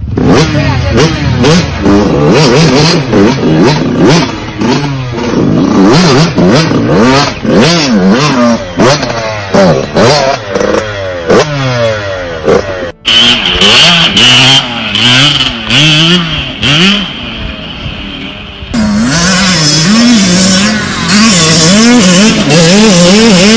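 Dirt bike engines revving up and down over and over. The sound changes abruptly about 13 and 19 seconds in, as one bike's revving gives way to another's.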